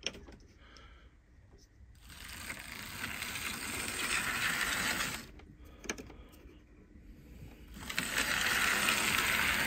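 Hornby Dublo 3-rail Duchess chassis, body off, running along the track under power: the electric motor whirring and the wheels and rods rattling. It swells twice, from about two seconds in and again near the end, with a quieter spell in between. This is a test run after the motor's magnet was remagnetised, and it counts as a successful one.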